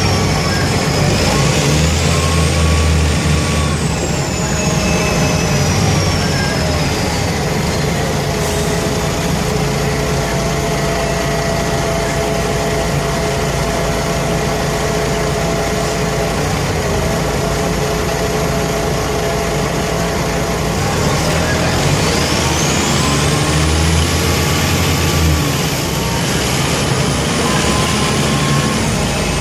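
Mercedes-Benz O345K articulated bus's OM447hLA horizontal six-cylinder turbo diesel running with a blown exhaust. It pulls harder about a second in and again near the end, each time with a high whine that rises quickly and then slowly falls away.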